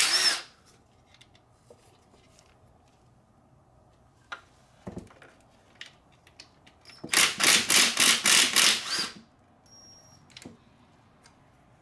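Socket ratchet clicking in fast runs as intake-manifold bolts are backed out: a short run at the start and a longer one of about two seconds later on. Light clinks of tools come in between.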